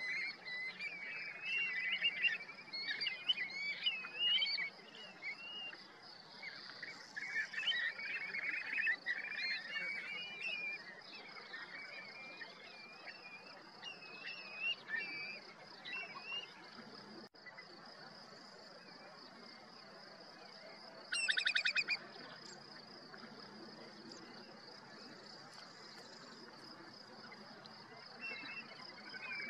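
A mixed flock of shorebirds calling, with many short swooping whistles and twitters that are busiest in the first half and thin out later. About two-thirds of the way through comes one loud, short rattle. A faint steady high hiss runs underneath.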